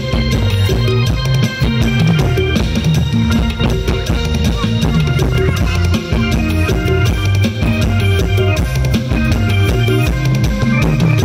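A live mor lam sing band playing an upbeat groove through a large outdoor PA system: a driving drum-kit beat over heavy electric bass, with keyboard tones held above.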